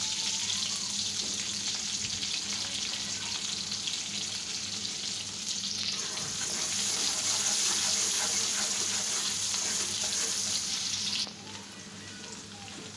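Sliced onion and garlic sizzling steadily in hot oil in a karahi, the tempering (bagar) for dal. Near the end the sizzle suddenly becomes much quieter.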